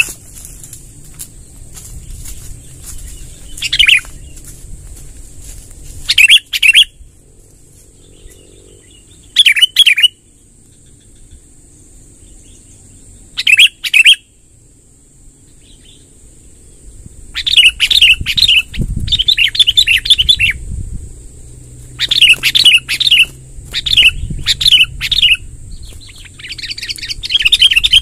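Sooty-headed bulbul (kutilang) singing: short bubbly chirping phrases come in separate bursts, growing into longer, busier runs in the second half. A steady high whine runs underneath.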